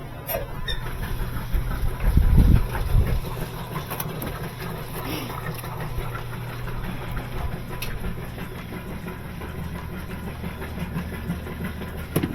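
A motor running with a steady low hum, a louder low rumble about two seconds in, and a few light clicks and knocks.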